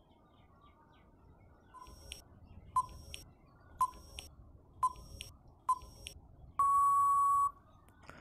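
Quiz countdown timer sound effect: a row of short electronic beeps about a second apart, then one long beep lasting about a second near the end.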